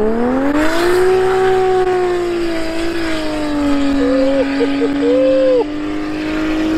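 Modified Toyota Supra Mk4 accelerating hard away, its engine note rising sharply in the first second and then holding at a steady high pitch. A few short whistling chirps come in about four to five seconds in.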